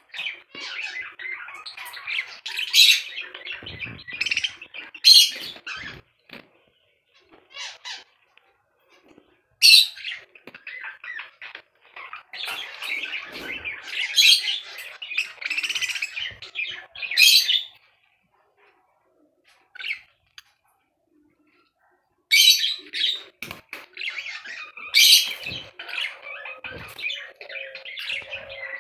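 Pet budgerigars chattering and squawking in bursts, with wing flutters as one bathes in a water bowl. The bursts are broken by a few quiet spells of several seconds.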